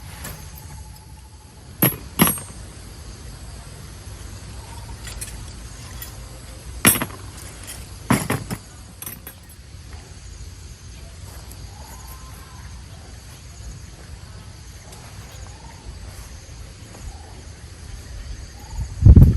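Insects trilling steadily in the background, broken by a handful of sharp knocks and clacks, a pair about two seconds in and another pair about seven to eight seconds in, and a heavy thud at the very end.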